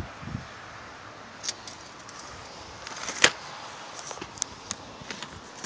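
Steady outdoor background hiss broken by a few sharp clicks and taps, the loudest about three seconds in.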